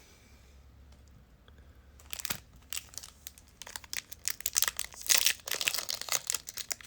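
Trading card pack wrapper being torn open and crinkled. After a quiet start, a sharp tear comes about two seconds in, followed by dense crackling that grows louder.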